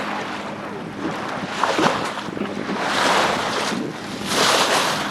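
Wind buffeting the microphone over water rushing and splashing along the hull of a sailboat under way, swelling in gusts about three seconds in and again near the end.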